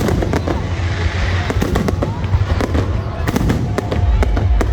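Fireworks display: a dense run of pops, cracks and bangs from bursting shells over a continuous low rumble.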